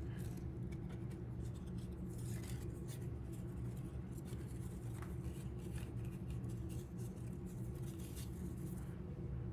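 Football trading cards handled and slid against one another in the hands: faint scratchy rustles and light clicks over a steady low background hum.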